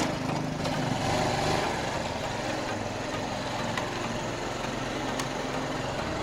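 A vehicle engine running steadily as it drives over a rough, hard-going track.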